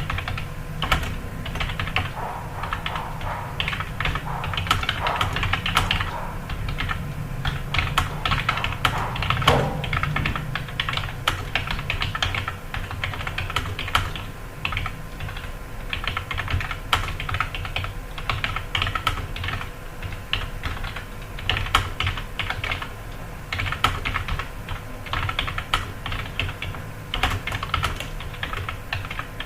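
Computer keyboard being typed on fast and continuously, key clicks coming in quick irregular runs with only brief lulls.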